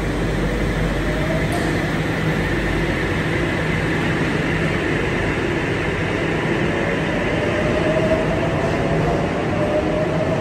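Sydney Trains double-deck electric passenger train pulling out of an underground station, its traction motors whining and rising slowly in pitch as it gathers speed over the rumble of the cars.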